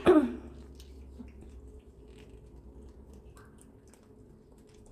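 Cat licking and chewing a lickable paste treat straight from a squeezed tube: faint wet smacking and small clicks. A short vocal sound falling in pitch right at the start is the loudest part.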